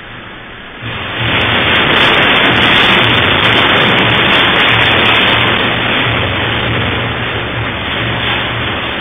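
Loud, steady rushing rumble with a low hum through a security camera's microphone, swelling about a second in and slowly easing off: a room shaking in an earthquake.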